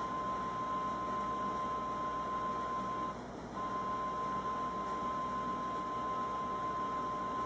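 Television speaker hissing with static from an input with no signal, under a steady high-pitched tone; the sound drops out for about half a second just after three seconds in, as the picture blanks during a picture-mode change.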